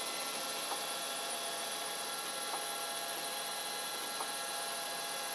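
Protomaker Black Sprint FDM 3D printer running while it prints a final layer: a steady hum with several steady high tones through it and a few faint ticks.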